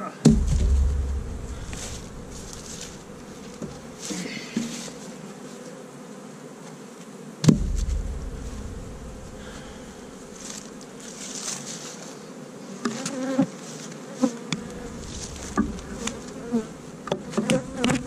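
Honey bees buzzing around their hives, stirred up and defensive after their hives were moved. Two sharp knocks, just after the start and about halfway through, stand out as the loudest sounds, with lighter clicks near the end.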